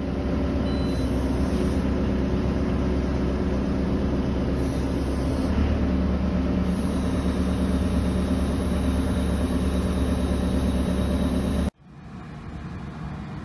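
Loader machine's engine running steadily, a little stronger about halfway in, cutting off abruptly near the end.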